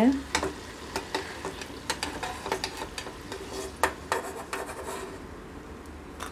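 Perforated metal skimmer scraping and tapping against a bowl as freshly fried battered snake gourd sticks are pushed off it, in irregular clicks over a faint hiss of hot oil. The clicks thin out and stop about five seconds in.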